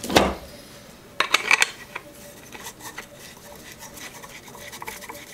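Threaded steel rod being fed and turned through the nut of a wooden long-reach clamp: metal rubbing and clicking, with a knock at the start and a quick run of sharper clicks about a second in.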